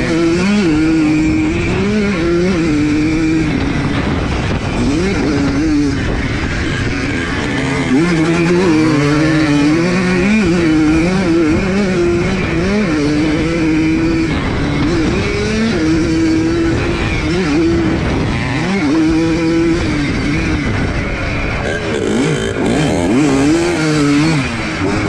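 1982 Yamaha YZ100's two-stroke single-cylinder engine being raced, its pitch rising and falling continuously as the throttle is opened and shut through the course.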